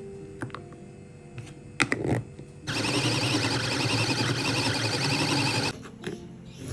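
Small electric mini food chopper running for about three seconds, its blades whirring and rattling through shallots, garlic, red chillies and candlenuts to make a spice paste, then cutting off suddenly. A couple of sharp knocks come just before it starts as the lid goes on.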